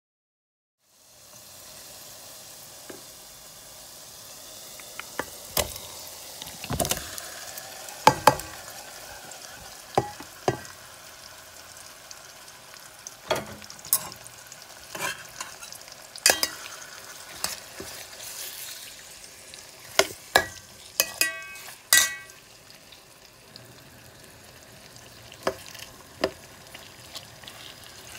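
Onions and spice-marinated chicken pieces frying in oil in a stainless steel pan: a steady sizzle that starts about a second in, broken by many sharp clinks and scrapes of a metal spoon stirring against the pan.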